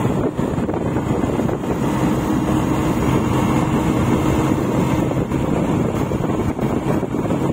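Steady wind rush on the microphone of a moving bike, with the road hum of the ride underneath. A faint steady tone rises out of it for a few seconds in the middle.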